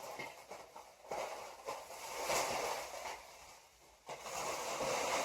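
Packing material rustling and crinkling as a planter is unwrapped from its protective packaging, in several uneven swells with a few sharp crackles.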